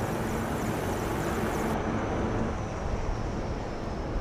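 Steady drone of aircraft in flight, a constant engine-and-rotor noise with a faint low hum. The thin high hiss drops out a little under two seconds in.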